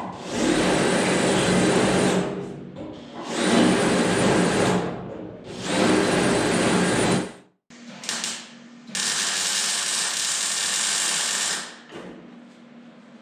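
Welding on sheet-metal body panels, in four loud bursts of crackling weld noise with short pauses between them; the last burst is steadier.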